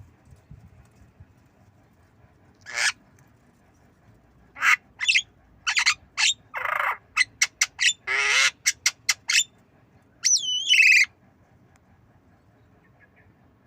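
Javan myna calling: a string of harsh, rasping calls and short sharp notes, ending with a wavering whistled call about ten seconds in.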